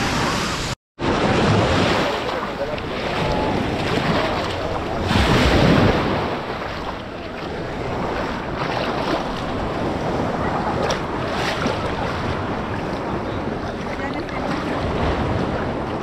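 Sea waves washing onto a sandy beach, with wind buffeting the microphone; one wave swells louder about five seconds in.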